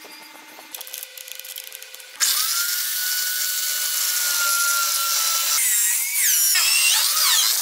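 Corded electric drill starts about two seconds in and runs with a steady high whine. About three seconds later its hole saw bites into a wooden block, and the motor's pitch dips and wavers as it cuts.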